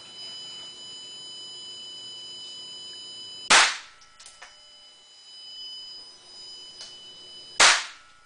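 Two shots from a Walther P22 .22 LR pistol, about four seconds apart: the first about three and a half seconds in, the second near the end. Each shot has a short ringing tail, and a few faint clicks follow the first.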